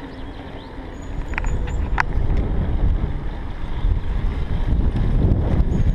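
Wind buffeting the helmet-camera microphone of a moving recumbent bicycle, a low rumble mixed with tyre noise on the road, growing louder about a second in. Two brief sharp clicks sound around a second and a half and two seconds in.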